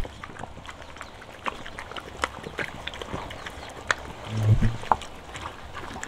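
Puppies and a dog lapping and chewing wet cooked rice: a run of small, irregular wet clicks and smacks. A brief low rumble about four and a half seconds in.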